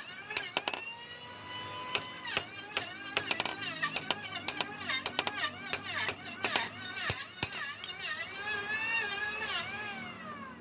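Background music: a wavering, gliding melody over a sharp, irregular percussive beat.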